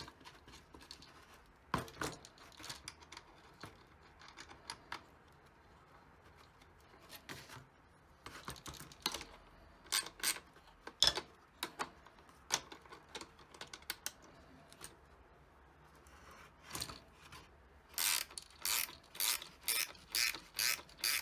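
Ratcheting wrench snugging up a bolt: scattered clicks and taps of the parts being handled, then near the end a quick, regular run of ratchet clicks, about three a second.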